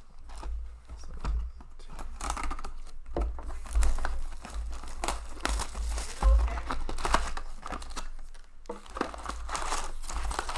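Plastic shrink wrap being torn and crinkled off a sealed trading-card box, with dense, irregular crackling and a brief lull about eight and a half seconds in.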